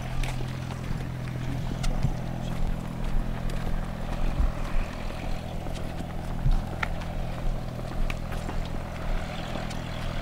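A steady low engine hum from aircraft on the apron, with scattered footsteps on asphalt.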